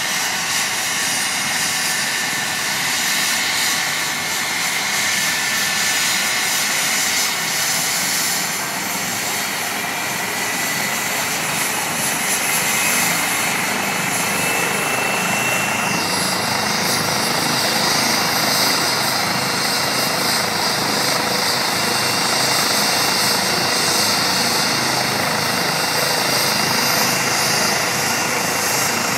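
Twin-turbine Eurocopter EC135 rescue helicopter running on the ground with its rotor turning: a steady loud rotor and turbine rush with a high turbine whine, whose high tones shift about halfway through.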